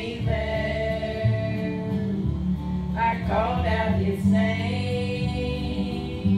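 Women singing a slow gospel song into microphones with instrumental accompaniment, long held notes over a steady bass line.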